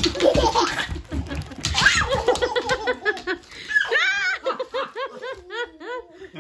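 Laughter: a quick run of short ha-ha sounds, about four a second, in the second half. Before it, wrapping paper crinkles as it is handled.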